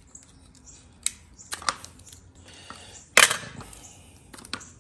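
Hands working with double-sided tape and a glass pane on a wooden bench: a few small clicks and taps, and one loud, sharp, short noise a little past the middle.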